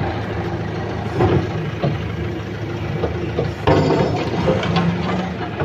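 Excavator's diesel engine running steadily, heard from inside its cab, with a few knocks and a louder metallic clatter about two-thirds of the way through.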